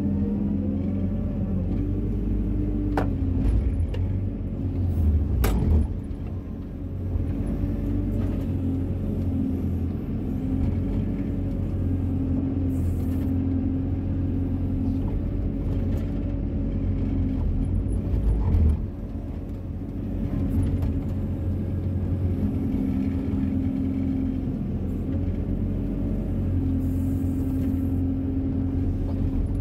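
Wheeled excavator's diesel engine running under load while the boom and bucket dig, with a whine that rises and falls in pitch as the hydraulics work, heard from inside the cab. A few sharp knocks stand out, about three seconds, five seconds and eighteen seconds in.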